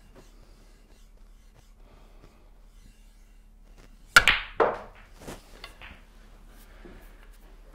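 A snooker shot: the cue tip strikes the cue ball about four seconds in, and half a second later the cue ball clacks into an object ball, followed by a few fainter knocks of balls.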